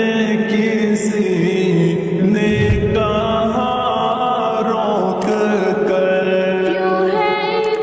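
Slowed, reverb-heavy naat track: layered wordless voices chanting in long held tones that slowly bend in pitch, with a deep boom about two and a half seconds in.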